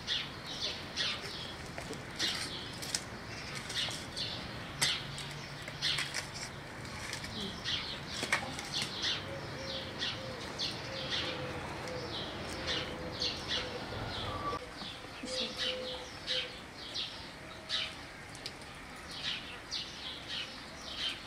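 Small songbirds chirping over and over, short high notes two or three times a second, with no pause.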